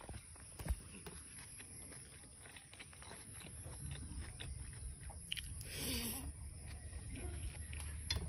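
Close-up chewing and mouth sounds of someone eating rice and pork curry by hand, with small clicks as fingers work the rice on a metal plate and a soft knock about a second in.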